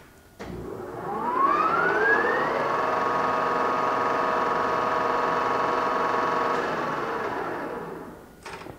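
Whacheon WL-520 gap bed engine lathe, with its 10 hp main motor, starting up in high gear. A click, then the headstock gears and spindle whine up in pitch as they come up to speed, run steadily for several seconds, then fade away, with a short knock near the end.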